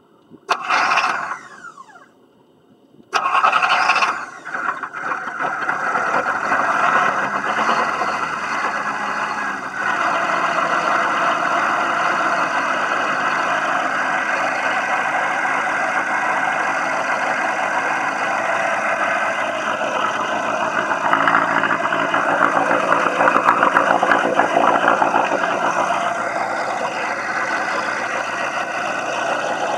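Atomic 4 inboard gasoline boat engine being started: a first short burst about half a second in that falls away and stops, then a second try about three seconds in that catches, after which the engine runs steadily.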